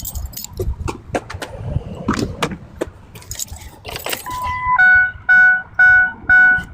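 Keys jangling and light metal clinks, then about four seconds in a car's dashboard warning chime: one short steady beep followed by a chime repeating about twice a second, the sound of the key going into the ignition before the engine is started.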